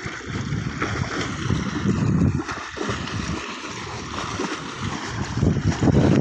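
Marwari horse wading through a shallow river, its legs splashing and churning the water, over a low, uneven rumble.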